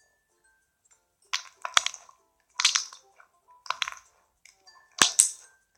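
Slime being squeezed and pressed by hand, giving four short bursts of sticky clicks and pops about a second apart.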